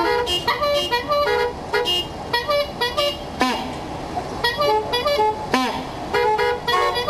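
Many car horns sounding short toots at different pitches in quick, overlapping patterns, played together as a horn ensemble. A few sliding tones cut through, about halfway and about three quarters of the way in.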